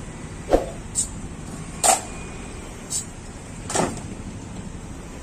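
Cadets' rifle drill: a squad working rifles up to the present arms in unison, each drill movement a sharp slap or knock of hands and rifles. Five such cracks, unevenly spaced about a second apart.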